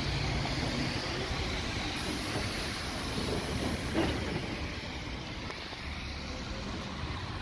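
Milan–Limbiate interurban tram rolling slowly along its track, heard from on board: a steady running noise of wheels on rails, with a single knock about four seconds in.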